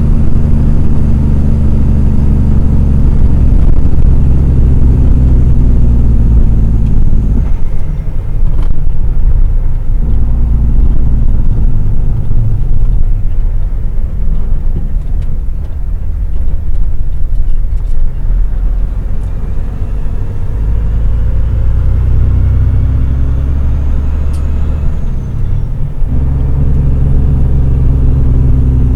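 Logging truck's diesel engine running under way, heard from a dashcam. The engine note is strong and steady at first, changes about a quarter of the way in and drops away for roughly ten seconds, then builds again and changes once more near the end.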